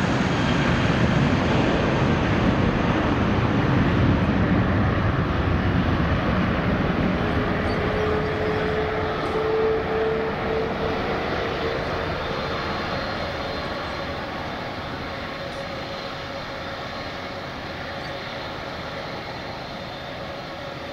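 Jet airliner's engines at takeoff power, a loud broad rumble that fades steadily as the aircraft climbs away. A steady whine comes in about eight seconds in.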